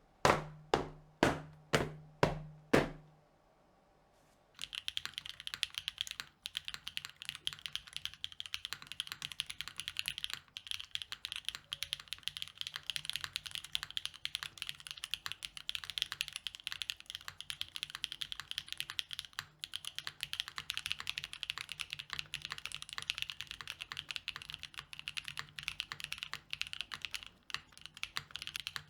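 Six loud, evenly spaced thuds with a low ring over the first three seconds. After a short pause comes fast, continuous typing on a Neo80 mechanical keyboard fitted with KTT Macaron switches, GMK keycaps and an aluminium plate with no foam: a dense run of keystroke clacks.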